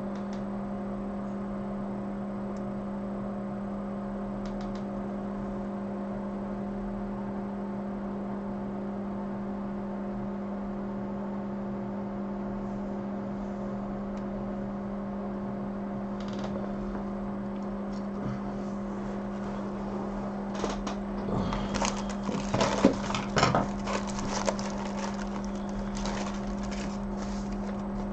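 A steady electrical hum with a low tone and a few higher overtones. About twenty seconds in, several seconds of irregular crackling and rustling handling noises, like small parts being rummaged for on a workbench.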